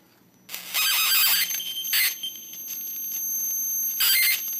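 High-voltage arc from a flyback transformer, up to about 20 kV, crackling and buzzing as it plays over a matchstick on a metal heatsink, with a steady high whine. It starts about half a second in, is loudest for the first second and a half, and flares again near the end.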